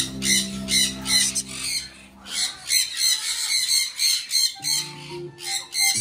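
Caged parrots squawking, a rapid run of high-pitched calls about three a second, over background music with held low notes.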